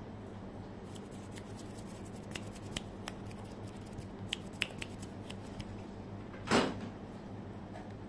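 Fingers tapping lightly close to the microphone: scattered, irregular small taps and clicks, with one louder, longer rustle of the hand about six and a half seconds in. A steady low hum runs underneath.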